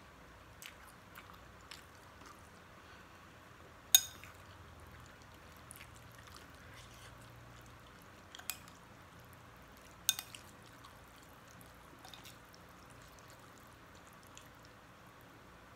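Metal spoon and fork clinking against a glass bowl of instant noodles: a few sharp clinks, the loudest about four seconds in, with softer clicks in between.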